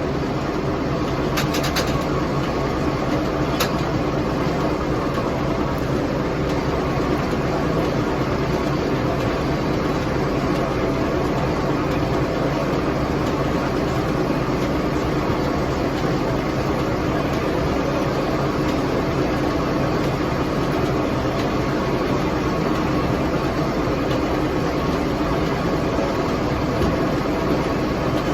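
Massey Harris 44 tractor engine running steadily as it powers a 42-inch Bell sawmill, with a few sharp clicks about one and a half and three and a half seconds in.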